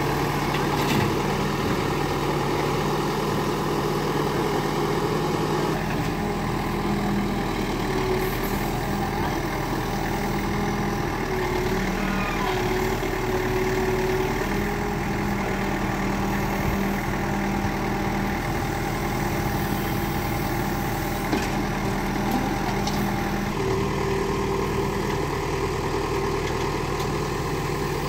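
Diesel engine of a Case 770 backhoe loader running steadily as it digs and loads soil. The engine note shifts a few times as the backhoe arm works, with a tractor engine idling alongside.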